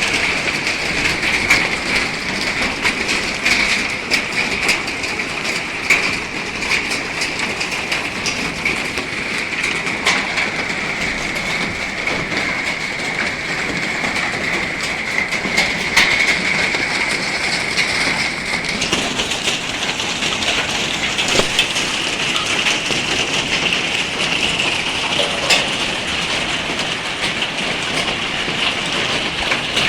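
Large hailstones falling hard: a dense, steady clatter of stones striking surfaces, with many sharper single impacts standing out.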